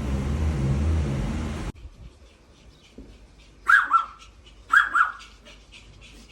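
A steady rumbling noise cuts off abruptly, then a dog barks in two quick double barks about a second apart.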